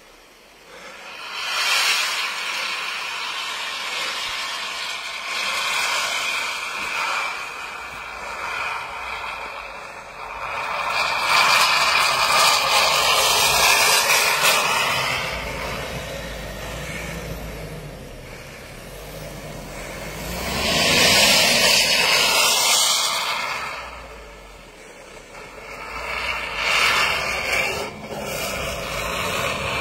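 Pickup truck driving through deep snow: its engine runs under load while the tyres churn and plough the snow, in loud swishing surges. A whine rises in pitch over the last several seconds.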